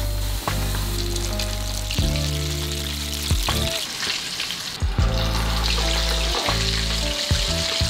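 Flour-coated chicken wings deep-frying in hot oil in a pan: a dense, steady sizzling and bubbling, through the first and then the second fry of double-fried Korean fried chicken. Background music with sustained low notes plays underneath.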